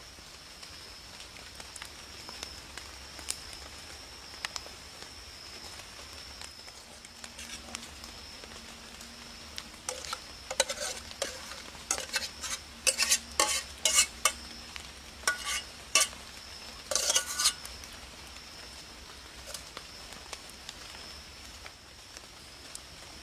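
A metal utensil clinking and scraping against a cooking pot as food is stirred, with a run of clanks about halfway through. Under it runs a steady high-pitched insect drone.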